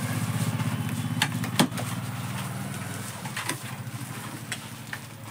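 An engine running with an even low throb that fades gradually, with a few sharp crackles and clicks of plastic bubble wrap being handled over it.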